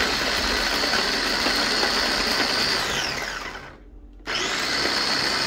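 Wingreat 2-in-1 electric food chopper's 600 W motor running in pulses from its press-top button, spinning its mixing attachment through chopped chilli: a steady high whine that falls in pitch as it winds down about three seconds in, then starts again about a second later.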